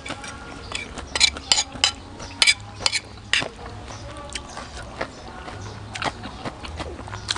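Metal spoon and fork clinking and scraping against a plate while mixing rice noodles into curry: a quick run of sharp clinks about a second in, thinning out over the last few seconds.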